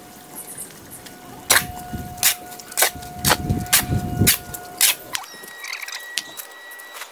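A shovel scraping and striking a concrete floor while turning a pile of sand and cement by hand: a quick run of sharp clanks and scrapes that stops about five seconds in.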